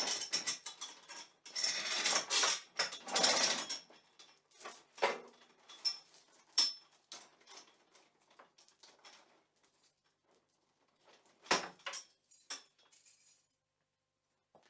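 Padlock and metal chain: the chain rattles and clinks for the first four seconds or so, then the padlock gives several separate sharp metallic clicks, three spread across a couple of seconds and three more close together near the end, as the shackle is snapped shut and opened.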